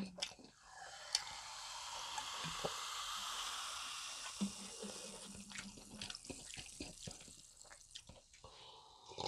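Liquid running or pouring as a hiss that swells for a couple of seconds and then fades, with scattered small clicks and taps.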